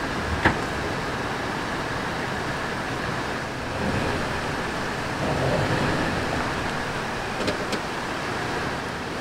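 Steady rush of a river, with an SUV's engine and tyres on gravel swelling briefly about halfway through as it eases forward from the trailer hitch. A sharp click comes about half a second in and two light clicks near the end.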